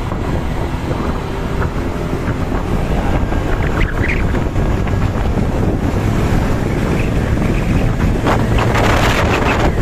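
Wind buffeting the microphone over roadside traffic noise, with the rushing growing louder near the end.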